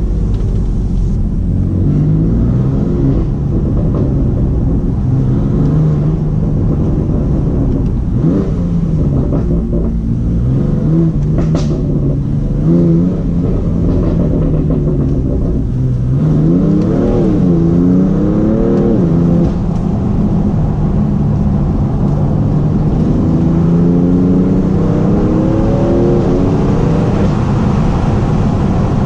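BMW M3 F80's twin-turbo straight-six with an M Performance exhaust, driving: the engine note climbs and falls with throttle and gear changes, wavers up and down about two-thirds of the way through, then climbs steadily under acceleration near the end.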